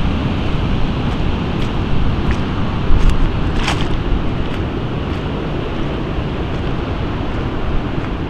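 Strong wind buffeting the microphone over stormy sea surf breaking on a stony beach, with scattered sharp clicks and a brief louder surge about three seconds in.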